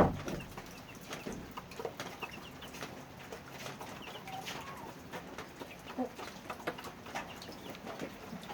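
Farmyard poultry: scattered short bird calls and chicken clucks, with light clicks and knocks between them.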